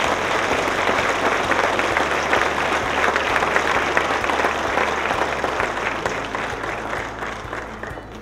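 Audience applauding. The clapping swells at the start, holds, then gradually fades away near the end.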